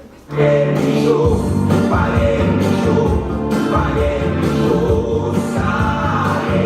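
A song with singing starts abruptly a moment in and plays loud.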